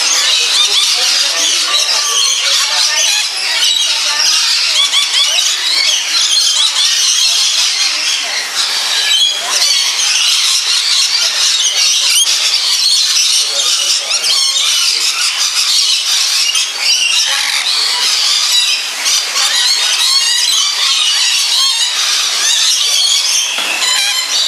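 Many lories screeching and chattering at once, a dense, shrill, unbroken din of overlapping short calls.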